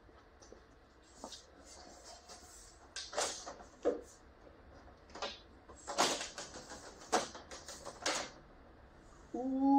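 Clear protective plastic film crinkling and crackling in short, irregular bursts as it is handled on a camper's aluminium skin. Near the end a man's voice starts, louder than the crinkling and held on one pitch.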